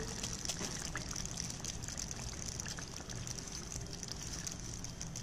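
Soybean chunk curry simmering in a steel kadhai: a soft, steady bubbling hiss with faint scattered small pops.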